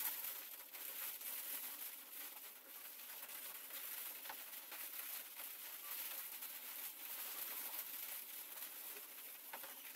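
A faint, steady high hiss with light scratches and small ticks from a hot wood-burning pen tip being drawn over oak as letters are burnt in.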